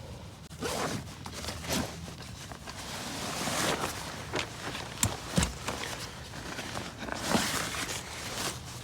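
Irregular rustling and crunching with a few sharp knocks, the loudest about five seconds in: a person moving about and handling gear.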